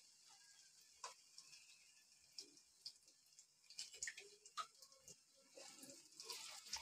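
Very faint frying of whole potatoes in hot oil in a wok: a light hiss with scattered small ticks and pops from the oil, close to silence. Near the end come a few soft knocks as a wire spider skimmer goes into the pan.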